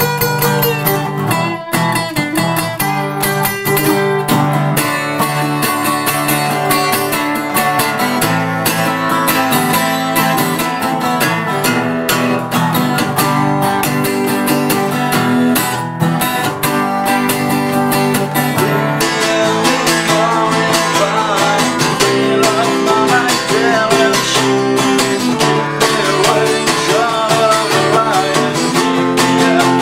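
Two acoustic guitars played together in a continuous instrumental passage, with strummed chords.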